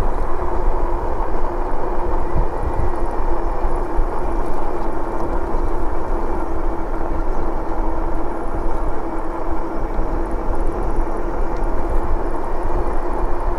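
Wind rushing over the microphone and road noise of an e-bike riding along, with a steady mid-pitched hum.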